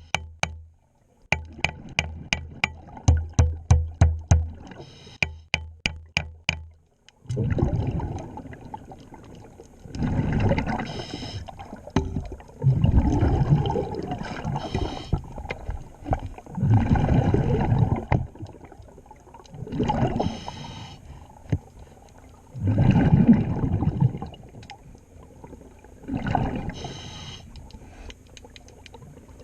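A fast run of sharp clicks, several a second, for about the first seven seconds. After that, a scuba diver breathing underwater through a regulator, with a loud rush of exhaled bubbles about every three seconds.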